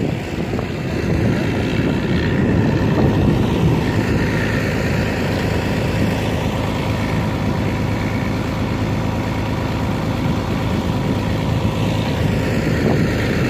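Old farm tractor engines running steadily under load while ploughing, a continuous rumble with no change through the stretch.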